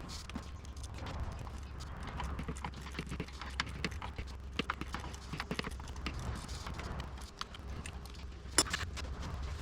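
Irregular light clicks and taps of hand tools and metal parts being handled, over a steady low hum.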